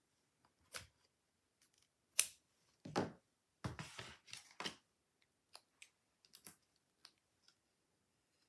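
Hands handling cardstock pieces and craft tools on a tabletop: a series of short taps, clicks and paper rustles, the loudest about two seconds in, with a busy cluster around four seconds.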